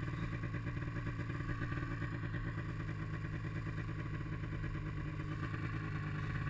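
Snowmobile engine running at a steady, even speed while the sled travels along a trail.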